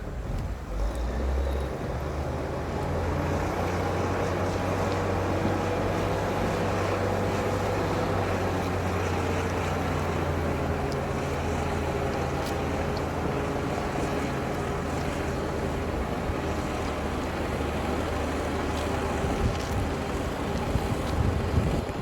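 Bulldozer's diesel engine running with a steady low drone.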